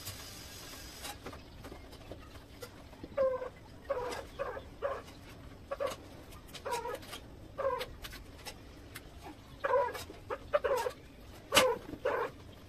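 An animal yelping in short, repeated high calls, irregularly about once or twice a second, with a few sharp clicks between them.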